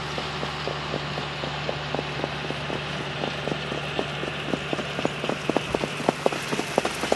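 Hoofbeats of trotting harness horses pulling sulkies on a sand track: quick rhythmic knocks, about four a second, getting louder over the last few seconds, over a steady low hum.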